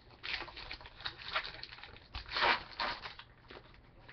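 Trading-card pack wrapper being torn open and crinkled by hand, in a few crackly bursts, the loudest about two and a half seconds in.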